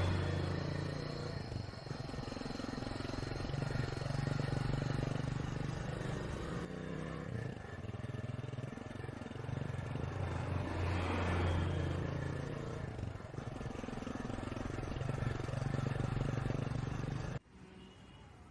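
A motor vehicle engine running steadily as a low hum that swells and eases every few seconds, with road noise over it. It cuts off suddenly near the end.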